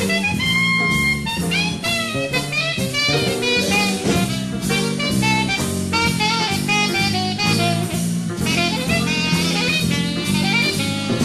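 Live big band playing jazz: a saxophone lead over drum kit and electric bass, with a steady beat.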